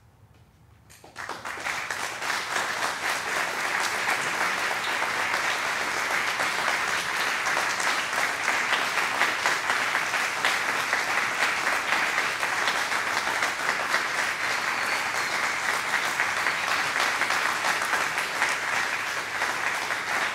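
Audience applause that breaks out suddenly after a moment of near silence about a second in, then keeps going steadily as a dense clatter of many hands clapping.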